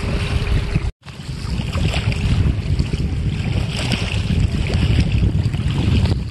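Wind buffeting the microphone in a gusty low rumble, with small waves lapping at the lake's edge. The sound cuts out completely for an instant about a second in.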